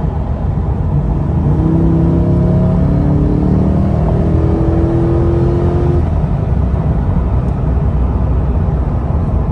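Chevrolet C8 Corvette's 6.2-litre V8 heard from inside the cabin, pulling hard after a kickdown to fourth gear at highway speed: the engine note comes in and rises from about a second and a half in, then falls away about six seconds in. Steady road and tyre noise runs underneath.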